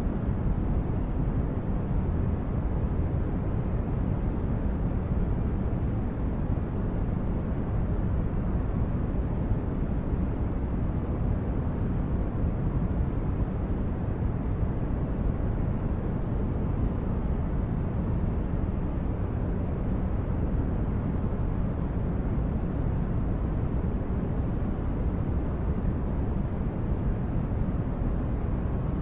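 Steady, deep, unchanging noise of a synthetic spaceship-interior ambience, brown-noise-like with its weight in the lows, like a ship's hull hum; no distinct events.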